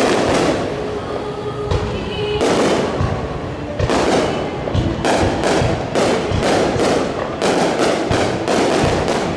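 Aerial fireworks display: shells bursting with loud booms and crackles, coming close together and quickening after about two and a half seconds.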